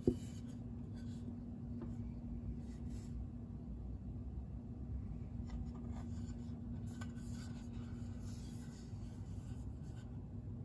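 Hands handling and turning a bamboo cutting board: fingers rubbing and lightly scraping on the wood, with a short knock right at the start, over a steady low hum.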